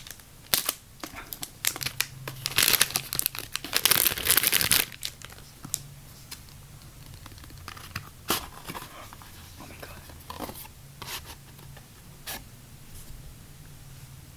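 Perfume box packaging being torn open and crinkled for a few seconds, followed by scattered clicks and taps as the box is handled and opened.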